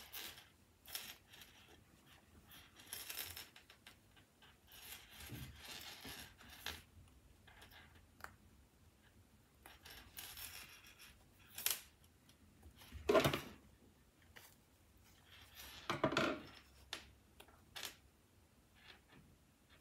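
Hands handling fabric, a zipper and pins on a tabletop: scattered rustling with small clicks and taps. The loudest rustles come about 13 and 16 seconds in.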